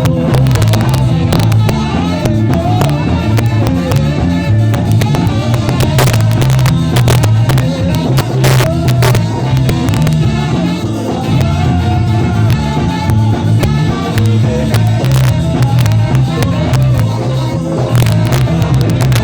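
Live ska band playing, with a pulsing bass line and a dense, loud mix, heard through a rough amateur recording.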